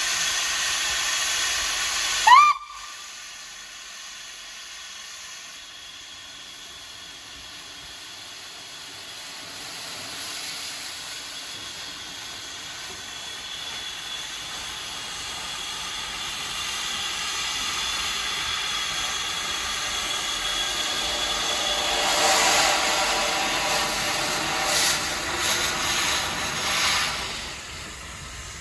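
NER Class P3 (LNER J27) 0-6-0 steam locomotive hissing steam from its open cylinder drain cocks. A short rising steam-whistle toot comes about two seconds in, and the hiss drops off sharply. The hiss then builds again, with a few uneven bursts of steam near the end as the engine eases forward.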